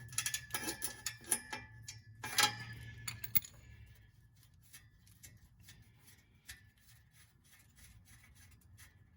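Ratchet wrench clicking in quick runs as a bolt on the exhaust is turned, with one louder click about two and a half seconds in, then only a few scattered clicks and taps.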